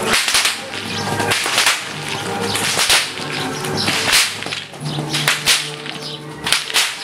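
Herdsmen's whips cracking repeatedly, in sharp, irregularly spaced cracks about once a second, over faint steady low tones.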